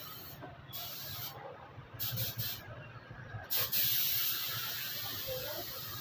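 Gravity-feed air spray gun hissing in several short bursts as the trigger is pulled and released, then a longer, louder steady pass starting about three and a half seconds in, laying clear coat on a car's front panel.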